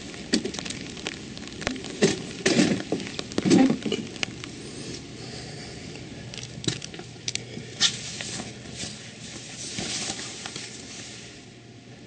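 Light rain pattering, with scattered sharp clicks and knocks and a few heavier thumps about two to four seconds in. The pattering fades out near the end.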